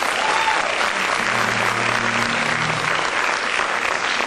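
Audience applauding steadily in a hall as the performer takes the stage.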